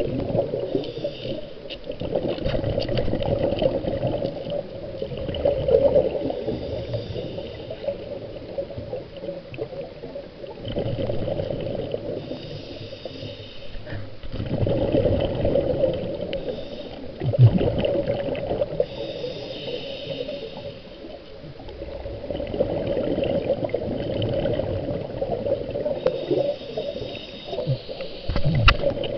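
Scuba diver breathing through a regulator underwater: a few seconds of exhaled bubbles burbling, then a shorter hiss of the inhale, repeating about every six to seven seconds.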